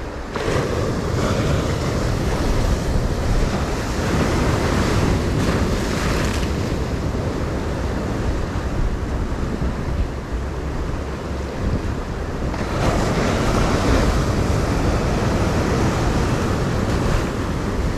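Sea waves breaking and washing over shoreline rocks, swelling louder twice, with wind buffeting the microphone.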